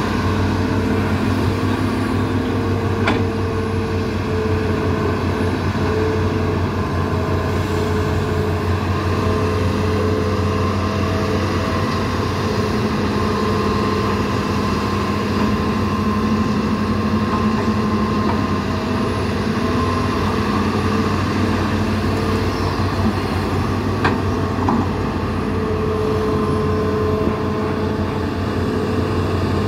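Diesel engines of a Hitachi and a Sumitomo hydraulic excavator running steadily while they dig, a continuous drone with higher tones that come and go. Two sharp knocks stand out, about 3 seconds in and near 24 seconds in.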